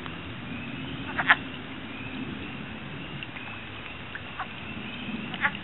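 Chorus of wood frogs giving their duck-like clucking calls, with louder, closer calls about a second in and again near the end.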